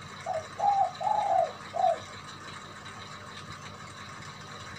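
Zebra dove (perkutut) cooing: a short phrase of four coo notes in the first two seconds, the third drawn out longest.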